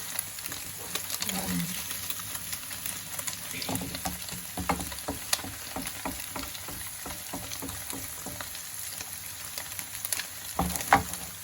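Tofu and egg frying in hot oil, a steady sizzle. Scattered short knocks and scrapes from a cooking ladle against the pan come through it, a few louder ones near the end.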